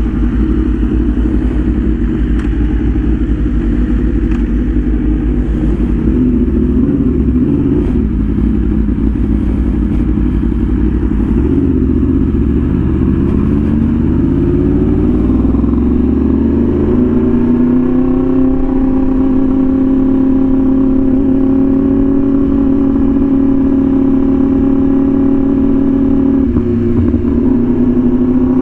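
Yamaha R1M superbike's crossplane inline-four engine, heard from on the bike. It runs at low speed with a low, uneven note, then rises steadily in pitch for several seconds from about halfway through as the bike accelerates, and settles into a steady cruising note.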